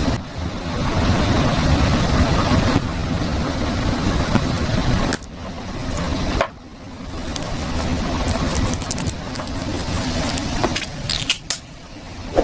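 Slime being squished and kneaded by hand as lipstick is mixed into it: a continuous sticky squishing with small pops, broken by a few sudden cuts.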